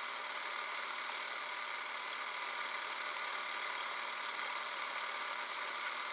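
Super 8 film projector running: a steady, fast mechanical clatter, thin and with no bass.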